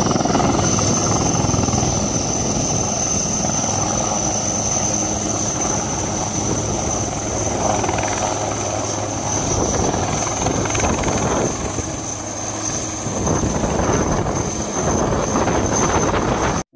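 Indian Air Force helicopter flying low and passing overhead: a steady, loud beat of rotor blades with a high steady whine over it. It cuts off suddenly near the end.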